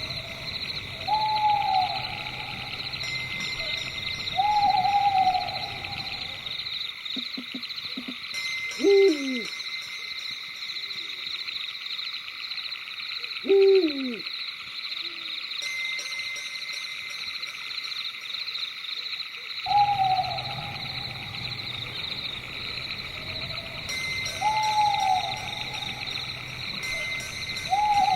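Owl hooting repeatedly over a steady, high-pitched night chorus. In the middle come two louder calls, about four seconds apart, that slide steeply down in pitch.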